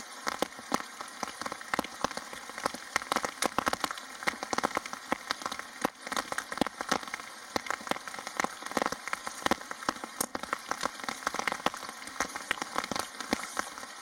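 Rain pattering: a dense, irregular run of sharp drop ticks.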